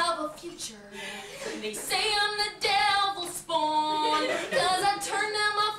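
Women singing without accompaniment, holding drawn-out notes, louder from about two seconds in.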